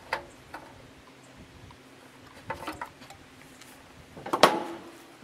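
Hand tools clinking against metal while a starter's mounting bolts are snugged up with a socket wrench: a few light clicks near the start, a short run of clicks about two and a half seconds in, and a loud metallic clank with brief ringing a little after four seconds.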